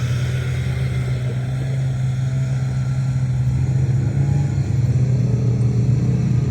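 Side-by-side UTV engine running steadily with a deep drone, growing somewhat louder in the last couple of seconds.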